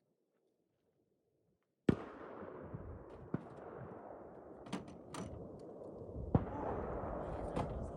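Rifle shots outdoors: a sharp crack about two seconds in and another, the loudest, a little past six seconds. Smaller clicks and knocks come between them, over a steady low background noise.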